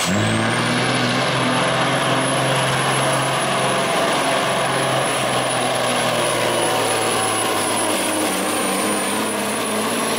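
Diesel semi truck engine running hard under load while dragging a weight-transfer sled, a steady heavy drone with a thin high whine above it. The engine note dips briefly right at the start, then climbs back and holds.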